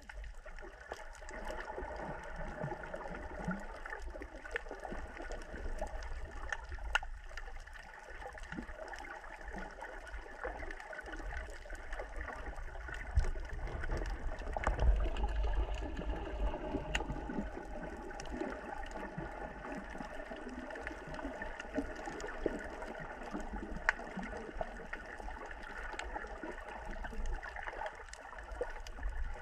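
Moving water, a steady noisy wash with a few sharp clicks scattered through it, swelling briefly about halfway through.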